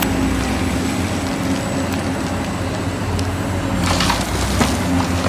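Large Caterpillar hydraulic excavators with their diesel engines running steadily under load, with rock and soil crunching as the bucket digs and spills into a dump truck.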